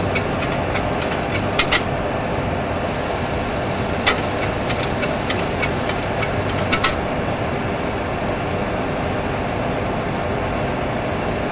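Steady cockpit noise of a Boeing 737 Classic full-flight simulator climbing under climb thrust: simulated engine and airflow sound. A few sharp clicks come through it, a pair about a second and a half in, one near four seconds and another pair near seven seconds.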